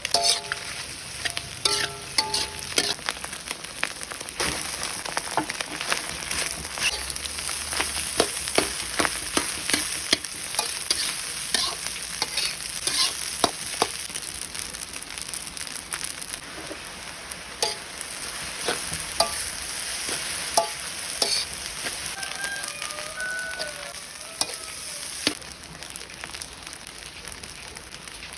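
Food sizzling as it fries in a pan, with frequent clicks and scrapes of a utensil stirring it.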